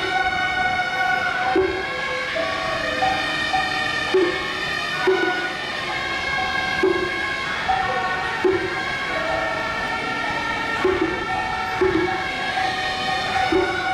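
Suona reed horns playing a melody of long held notes that step in pitch, over percussion struck every second or two.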